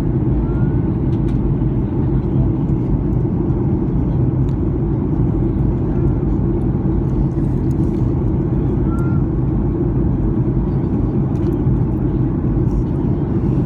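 Steady low rumble of jet airliner cabin noise inside a Southwest Airlines Boeing 737 descending toward landing.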